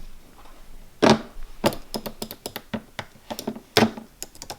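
Irregular clicking of keys being typed on an Apple Magic Keyboard, with a couple of louder knocks, about a second in and near the end.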